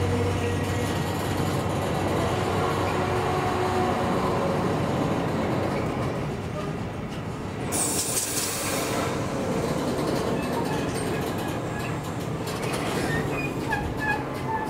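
Intermodal freight train of pocket wagons loaded with semitrailers rolling past, a steady rumble of wheels on rail with a short high-pitched squeal about eight seconds in. Music fades in near the end.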